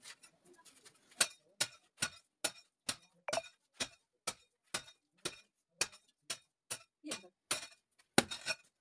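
Metal-bladed digging tool striking and breaking up a packed earth floor, a steady run of sharp chopping strikes about two to three a second, starting about a second in.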